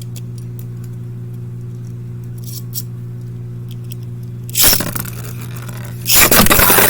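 A sharp loud clack about two-thirds of the way in, then near the end a loud, continuous clattering and scraping of Beyblade Burst tops, Wonder Valtryek and Z Achilles, colliding in a plastic stadium. A steady low hum runs underneath.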